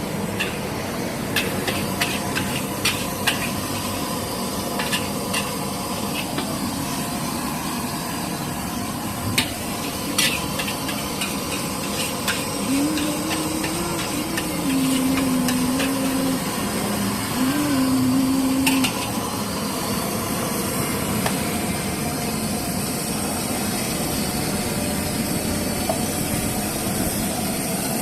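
Fried rice being cooked in a wok: a steady hiss with sharp metal clinks of the spatula on the wok, most frequent in the first half. A low wavering tone runs for several seconds midway.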